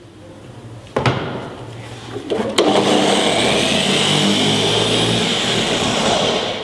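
Rupes Bigfoot random-orbital polisher running on a car panel. There is a sharp click about a second in, and a second sharp click about two and a half seconds in, after which it runs loud and steady, then drops off shortly before the end. Polishing compound is being flung off the pad, the wrong way to spread it.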